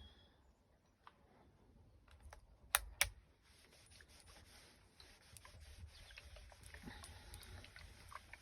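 A household clothes iron worked over a pressing cloth: two sharp clicks a little under three seconds in, then a faint hiss and rustle from about halfway on as the iron is pressed and moved.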